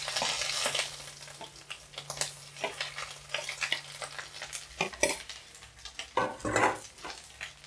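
Garlic and ginger paste hitting hot ghee and mustard oil in an aluminium kadai: a sudden loud sizzle that eases to a steady frying hiss. A steel spoon clicks and scrapes against the plate and pan as the paste is pushed in, with a louder clatter near the end.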